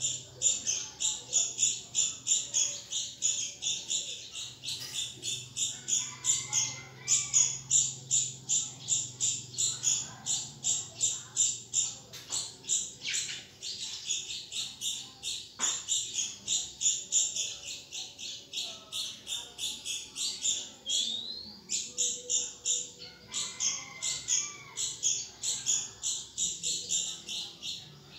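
Red-whiskered bulbul nestlings, about 13 days old, begging for food from the Oriental magpie-robin that fosters them: a steady run of short, high chirps, about three a second, that never lets up.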